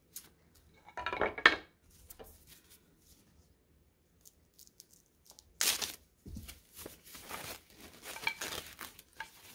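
A few metallic clinks about a second in, then foam packing wrap crinkling and tearing as it is pulled off wooden barstool parts.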